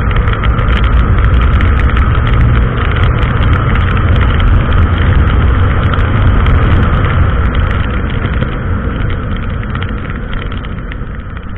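Honda XRE 300 single-cylinder motorcycle engine running while riding, mixed with a steady rush of wind noise, easing off over the last few seconds as the bike slows.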